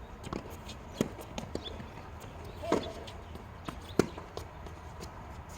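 Tennis balls being hit with rackets and bouncing on the court: sharp single pops roughly every one to one and a half seconds, the loudest about four seconds in.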